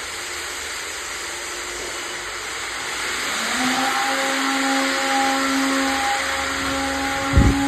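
A motor-driven machine running with a steady whooshing hiss, like a vacuum; about three seconds in, a steady motor hum joins it. A short low thump comes near the end.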